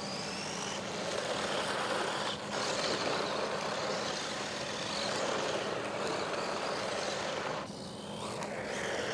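WLtoys 144001 1:14-scale RC car driven on dirt: the electric motor whines high over the scrabbling of the tyres on loose ground. The sound dips briefly twice, about two and a half seconds in and near the end, as the throttle comes off.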